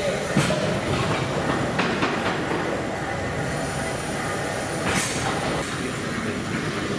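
The Prince Consort Victorian steam beam engine running under steam: a steady mechanical churning and hiss with a few sharp metallic clanks, the loudest about half a second and five seconds in.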